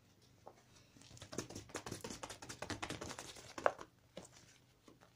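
A quick run of light clicks and crinkly rustling, lasting about three seconds, with one sharper click near the end.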